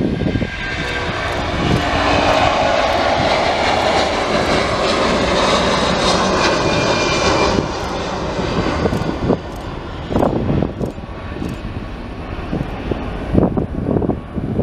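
An Airbus A330-343 with Rolls-Royce Trent 700 jet engines at take-off power, climbing out overhead with a loud, broad roar. The roar builds over the first two seconds and drops off sharply about halfway through, leaving the fading jet noise and gusts of wind buffeting the microphone.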